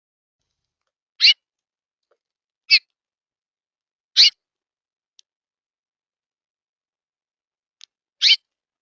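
A songbird at a feeder giving short, sharp call notes: four quick chips spaced unevenly, with a couple of faint ticks between them.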